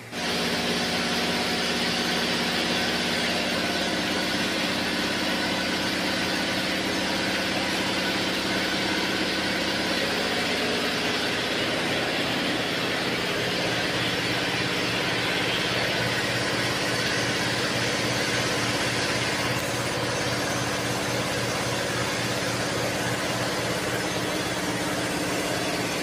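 Electric motor of a vertical multistage boiler feed pump running steadily: a constant hum with a hiss over it, as the pump pressurises the boiler to find a water leak.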